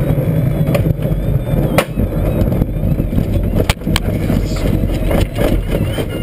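SZD-51-1 Junior glider rolling out across a rough field after an outlanding: the main wheel and fuselage rumble and rattle over the bumpy ground, with sharp knocks as it jolts.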